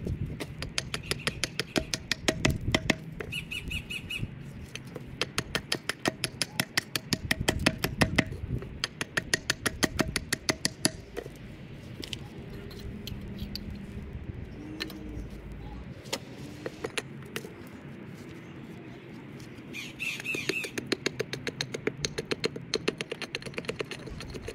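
Hatchet chopping and shaving a wooden stick on a chopping stump: quick, sharp blows several a second, in runs with a sparser stretch in the middle. Short bird calls sound near the start and again near the end.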